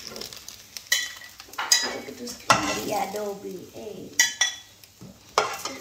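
A metal slotted spatula scraping and clinking against a frying pan and a plate while scrambled egg is scooped out, with about half a dozen sharp clinks that ring briefly.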